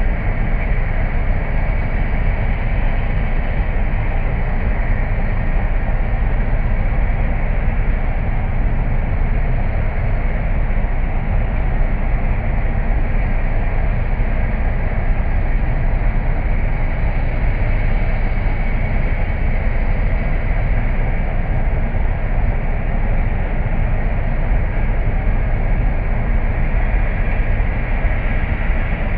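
Cold milling machine grinding up asphalt pavement, a dense steady rumble that does not change, heard slowed down so that it sounds deep and dull.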